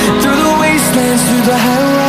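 Background pop music with a gliding melody over a steady accompaniment.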